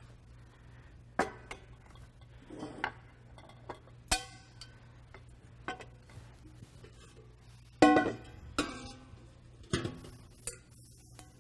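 Stainless steel camp stove, pots and lids clinking and ringing as they are handled, nested and set down on a wooden tabletop: scattered knocks, the loudest about eight seconds in.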